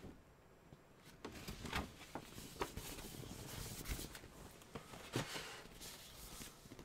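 Faint rustling and light taps of paper posters being handled and laid down on a tray, a scattered handful of small contacts starting about a second in.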